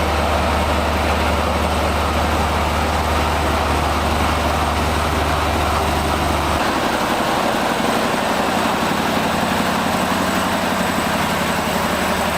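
Western Star prime mover's diesel engine running steadily under load with a deep engine note. About halfway through, the lowest part of the note drops away and the engine tone changes.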